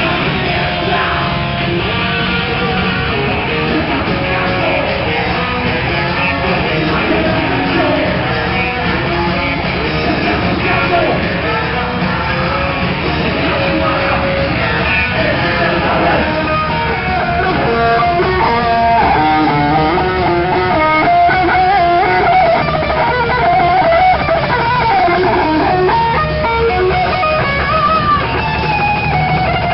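Rock band playing live with loud electric guitars and no vocals; a lead guitar melody comes to the fore in the second half.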